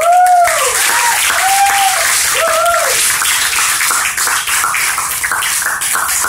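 Audience applauding, breaking out suddenly, with several loud rising-and-falling whoops of cheering in the first three seconds.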